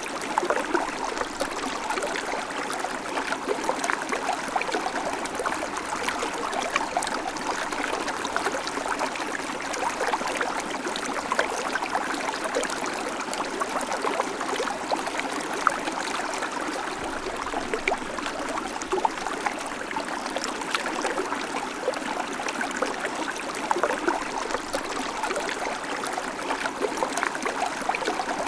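A shallow babbling creek, water trickling and gurgling over stones in a steady flow with many small splashes.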